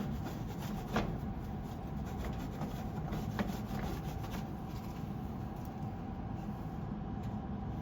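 Cloth rag rubbing and wiping inside a whole-home humidifier's housing, with a couple of light knocks against the unit.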